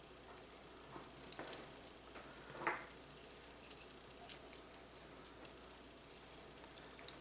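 Faint, scattered clicks and light metallic rattles from handling a replacement power-cord plug and its stripped wires.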